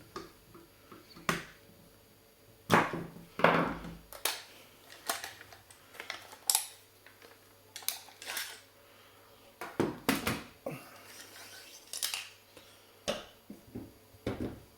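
Irregular clicks, knocks and clatters of hard parts being handled as a CYMA CM.097B airsoft rifle is taken apart to reach its hop-up unit. The loudest knocks come about three seconds in.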